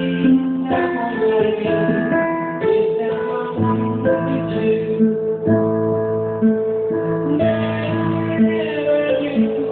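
Live band instrumental with guitar, playing held chords that change every second or so over a bass line.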